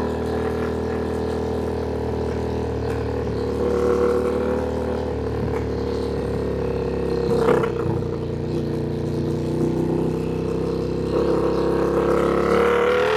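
Ducati Panigale V2's twin-cylinder engine running at a steady cruising speed while the bike is ridden, with a short sharp sound about seven and a half seconds in and a slight rise in engine note near the end.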